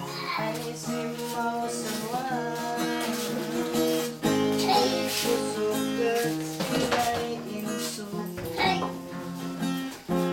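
Acoustic guitar strumming chords, with a voice singing along over it.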